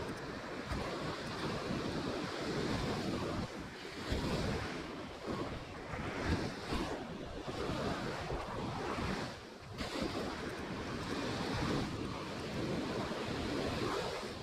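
Ocean surf breaking and washing up a sandy beach, a steady rush that swells and ebbs, with wind buffeting the microphone.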